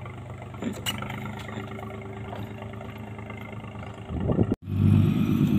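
Small river boat's engine running steadily under way. About four and a half seconds in the sound cuts out for an instant and the engine comes back louder.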